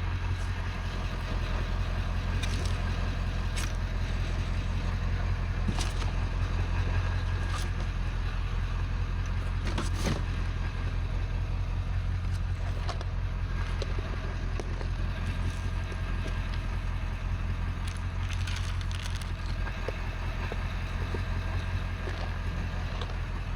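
A motor vehicle running steadily, with a low engine and road drone and scattered light rattles and knocks.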